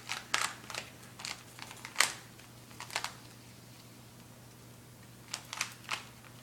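Plastic Rubik's cube being turned fast by hand: irregular bursts of sharp clicks as the layers snap round, the loudest about two seconds in, a pause of about two seconds, then another flurry near the end.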